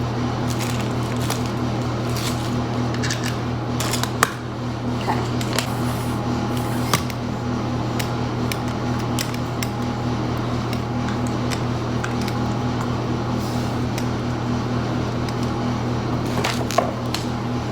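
Small clicks, taps and knocks of a phone tripod's parts being handled and fitted together, a few sharper clacks among them, over a steady low hum.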